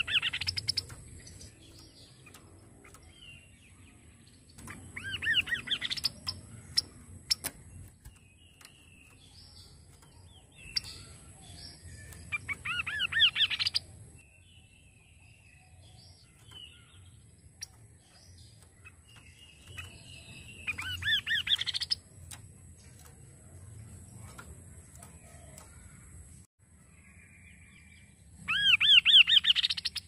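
Chestnut-capped babbler (kaso-kaso) singing: a quick run of rising notes lasting about a second, repeated five times about every seven or eight seconds. Softer chirps fall between the runs.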